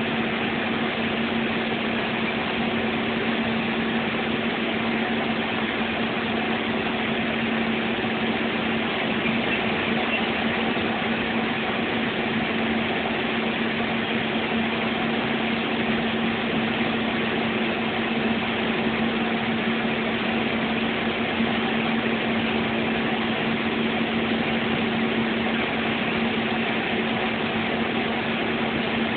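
Steady engine drone and road noise inside the cabin of a moving bus, with a constant low hum and no change in pace.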